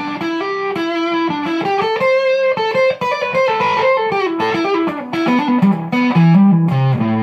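Jazzmaster electric guitar on its neck pickup played through a Ghost Effects Sounds of Today MK1 Tone Bender fuzz pedal into a Hiwatt amp, with the pedal's bias knob turned fully back. A fuzzy single-note riff that climbs, falls and climbs again.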